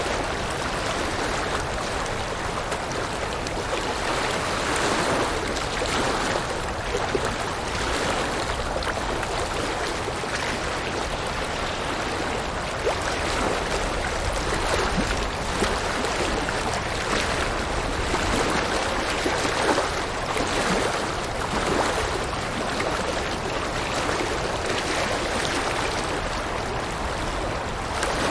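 River water running over rocks: a steady rushing and babbling flow with small irregular surges.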